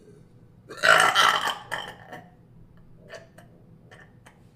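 A person's loud, deliberate burp about a second in, lasting roughly a second and trailing off.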